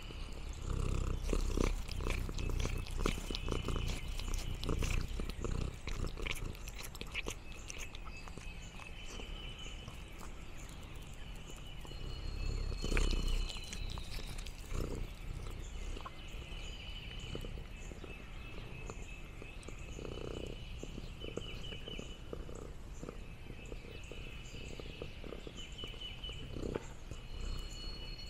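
A domestic cat purring close to the microphone, a steady low rumble, with crackling rustles and clicks through the first several seconds.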